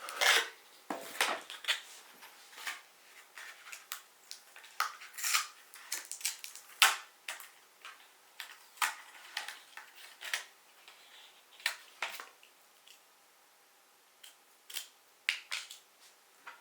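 Small hard-plastic parts and packaging being handled: irregular sharp clicks, taps and light rattles, with a short quiet pause before a few last clicks near the end.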